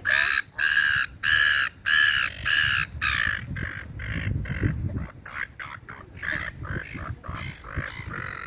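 Seagulls squawking in a flock: about five loud harsh calls in quick succession in the first three seconds, then fainter overlapping calls.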